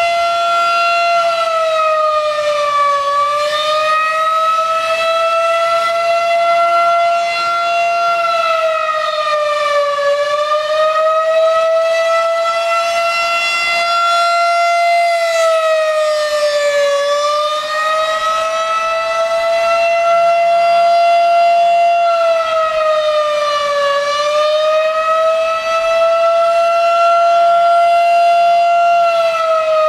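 Federal Signal 2001-SRN electromechanical outdoor warning siren sounding a loud fast wail for a scheduled test. Its tone holds high, dips briefly about every seven seconds and climbs back up.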